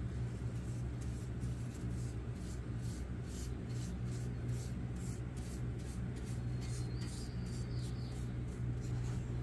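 Paintbrush scrubbing liquid rust converter onto the steel mower deck: repeated short brushing rubs, about two a second, over a steady low hum.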